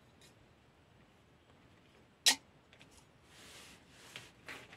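A sharp click a little over two seconds in, then a few softer clicks and a brief rustle: a USB current meter and charging cable being plugged into a wall charger.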